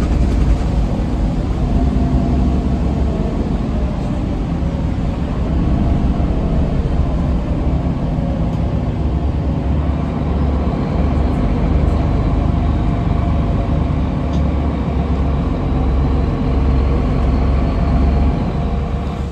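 Solaris Urbino III city bus engine and drivetrain running, heard from inside the passenger cabin: a steady low rumble with engine notes that drift in pitch, and a slightly falling whine near the end.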